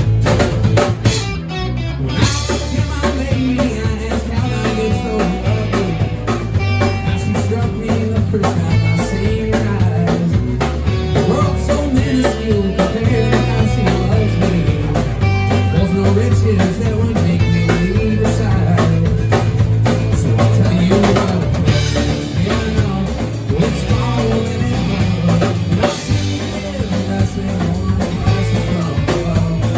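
Live rock band playing a song: drum kit, electric bass, strummed acoustic guitar and electric guitar, loud and continuous.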